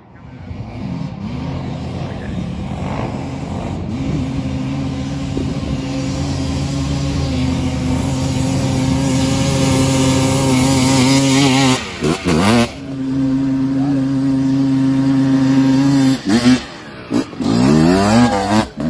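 Honda ATC250R three-wheeler's two-stroke single-cylinder engine running at steady high revs, growing louder as it comes closer. About twelve seconds in the throttle drops briefly and the pitch dips before it pulls again, and near the end it revs up and down in quick rises and falls.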